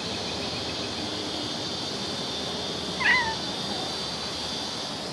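A cat gives one short, high, wavering meow about three seconds in.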